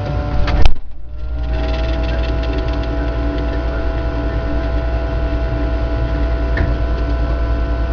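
A thump about half a second in, then a refrigerator's motor hum that starts up with a slight rise in pitch and runs steadily.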